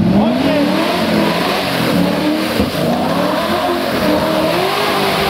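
Modified off-road 4x4's engine revving hard under load as it churns through deep mud. Its pitch sweeps up sharply at the start, then keeps rising and falling as the throttle is worked.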